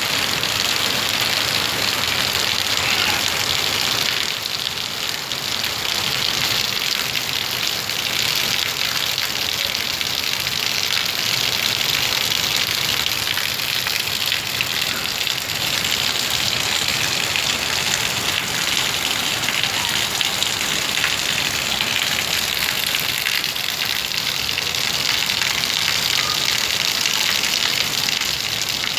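Torrential rain pouring down: a steady hiss of heavy rain with water gushing.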